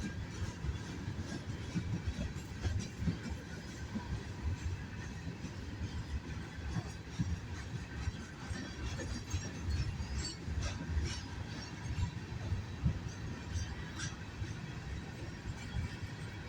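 Herzog train rolling past on the rails: a steady low rumble of the cars with scattered wheel clicks and short squeals.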